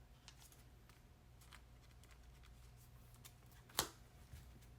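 Near silence over a steady low hum, broken by a few faint clicks of trading cards being handled, with one sharper click about three-quarters of the way in.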